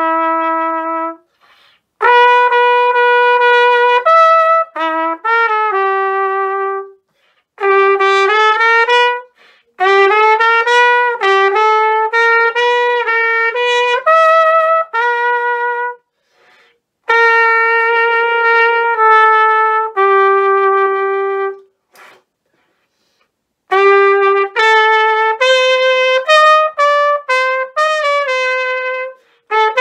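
Unaccompanied solo trumpet playing a melody in phrases of held and moving notes, with short silent breaks for breath between the phrases.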